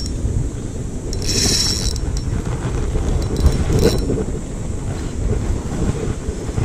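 Spinning reel being cranked while a hooked bass is reeled in, with rumbling handling noise close to the microphone. A short hiss comes about a second and a half in and a sharp click near four seconds.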